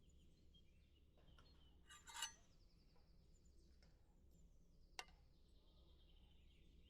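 Near silence: faint outdoor ambience with a thin high chirring, broken by a brief rattle of small clinks about two seconds in and a single sharp click near five seconds.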